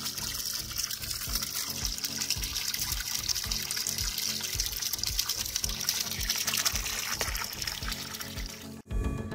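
Water of a small stream trickling and pouring over mossy rock, mixed with background music that has a steady beat. Near the end the water sound cuts off abruptly, leaving the music.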